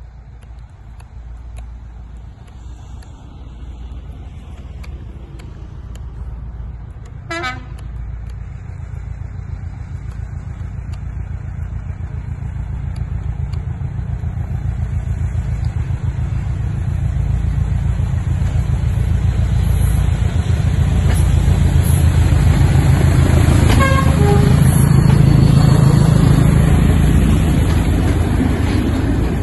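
A pair of diesel locomotives, a Class 73 and a Class 31, approaches with their engines growing steadily louder until they pass close by near the end. A short horn toot sounds about a quarter of the way in, and another comes about five seconds before the end.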